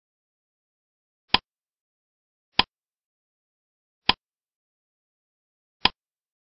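Countdown timer sound effect: four sharp single clicks spaced about one and a half seconds apart, ticking off the seconds of a quiz countdown against dead silence.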